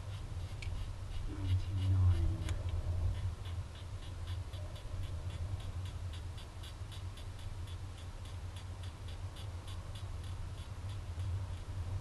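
Strong gusty wind buffeting the microphone as a steady low rumble, with a faint, even ticking of about three ticks a second from about two seconds in.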